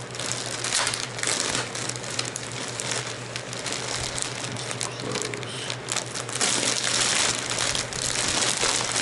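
Plastic shipping mailer crinkling and rustling as it is handled and peeled open by hand, with a steady low hum underneath.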